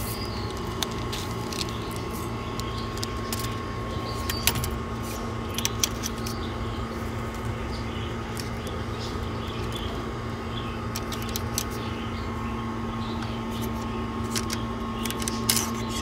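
Steady machine hum holding a low and a higher steady tone, with scattered light clicks and taps.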